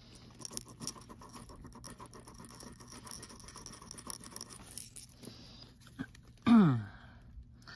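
Light, rapid scratching and ticking of a metal chain rubbed on a gold-testing touchstone. Near the end comes a short, louder call that falls steeply in pitch.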